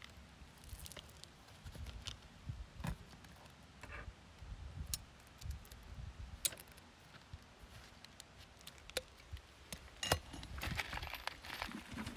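Quiet handwork sounds: scattered clicks and scrapes of a caulking gun and a pipe flashing being worked against asphalt shingles, over a low rumble. The clicking grows busier near the end.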